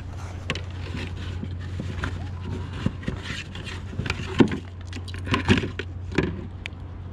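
Irregular knocks, scrapes and rustling of fishing gear being handled in a plastic bait bucket, the loudest knocks about four and a half and five and a half seconds in, over a steady low hum.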